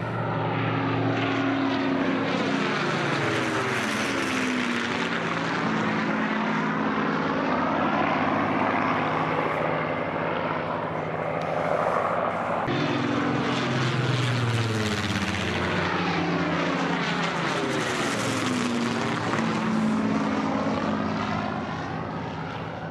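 Supermarine Spitfire and Hawker Hurricane piston engines droning steadily as the fighters fly past overhead, the sound swelling and changing pitch with each pass. There is an abrupt break a little past halfway, after which a second pass follows.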